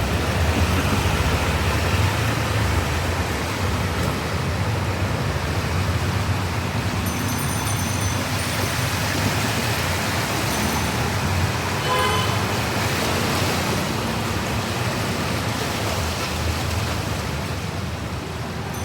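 Steady wash of monsoon rain and street traffic on a flooded city street, with a deep rumble underneath. A short ringing tone sounds about twelve seconds in.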